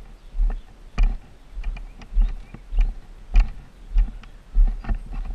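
Walking footsteps on a gravel and asphalt driveway: an even thump with a scuff about every 0.6 seconds, close to the microphone.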